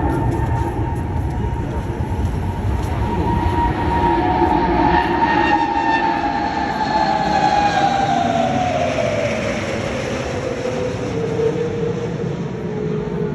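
Aircraft passing overhead, its engine whine falling in pitch as it goes by, over a steady rumble.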